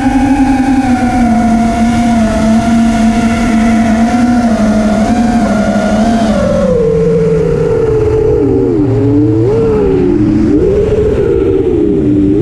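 FPV quadcopter's brushless motors and propellers whining, the pitch following the throttle: steady and sliding slowly lower at first, dropping about six seconds in, then rising and falling several times.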